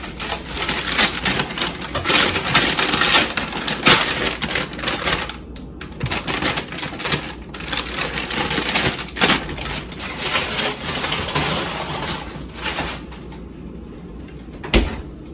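Plastic produce bags crinkling and rustling as bagged green peppers and greens are handled and pulled out of a refrigerator, with a single sharp knock near the end.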